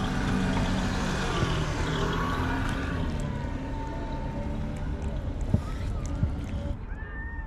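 Steady low rumble of an engine or street traffic, with hungry stray cats meowing over it: a long held meow in the middle and a falling one near the end. Two short knocks come just after the middle.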